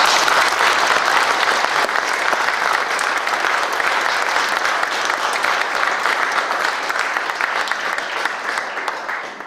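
Audience applauding: dense clapping that tapers a little and stops near the end.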